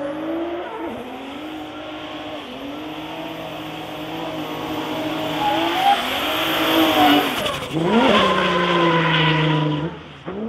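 Mercedes diesel drift car's engine revving hard, its pitch rising and falling over a haze of tyre noise. It grows louder in the second half, with a quick drop and climb in revs about eight seconds in.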